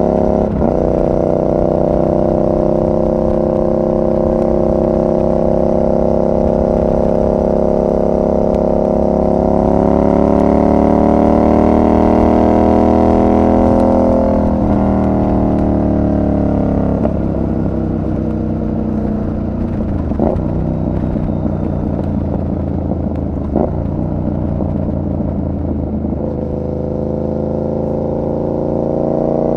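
Yamaha MT-07's 689 cc parallel-twin engine running under way, holding steady revs, then climbing in pitch from about ten seconds in. At about fourteen seconds the revs drop off sharply, and the engine runs lower and rougher with a few short knocks before climbing again near the end.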